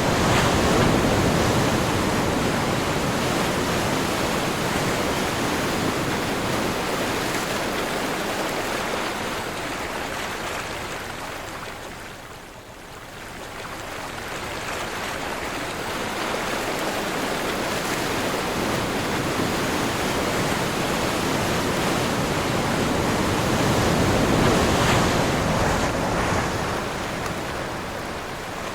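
Ocean surf with wind: a continuous rush of waves that swells and fades, easing to a lull about twelve seconds in and building again to a peak near the end.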